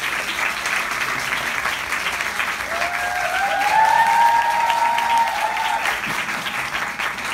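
Audience and cast applauding steadily, with a long drawn-out cheering voice rising over the clapping from about three seconds in until about six.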